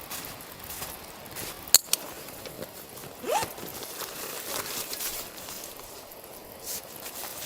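Scattered crunching and rustling handling noises, with two sharp clicks just under two seconds in and a short rising squeak a little over a second later.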